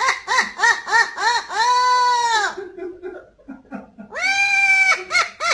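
A parrot calling loudly: a quick run of short rising-and-falling calls, then a long drawn-out call. After a quieter pause near the middle, another long call follows, and short calls come again near the end.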